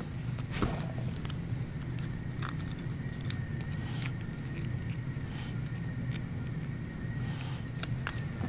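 Light handling noise: small scattered clicks and crinkles as fingers peel and press adhesive glue tabs, over a steady low room hum and a faint steady high tone.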